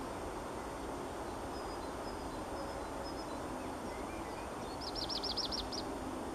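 Male black redstart singing part of its territorial song. A few faint thin high notes come first, then about five seconds in a quick run of about seven short high notes, over a steady low background noise.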